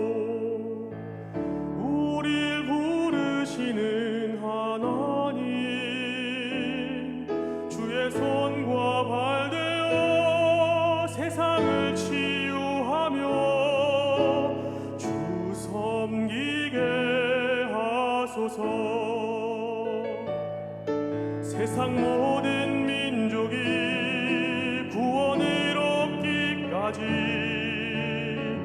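Worship song music: a melody with wide vibrato over a piano accompaniment, running on through an instrumental passage of the song.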